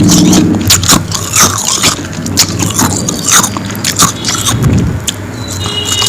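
Close-miked biting and chewing of powdery frost ice: crisp crunches about once a second, each with a bright crackly hiss.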